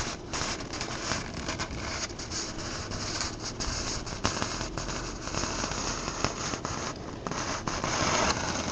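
Handling noise: steady scratching and rustling with scattered small clicks, as of hands moving things about on a tabletop.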